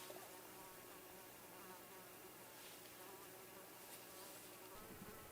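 Near silence with a faint, steady buzz of an insect.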